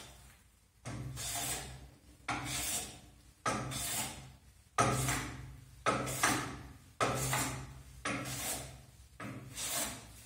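Hand plane being pushed along the edge of a wooden board, about eight strokes roughly a second apart, each starting with a sudden hiss of shaving that fades off.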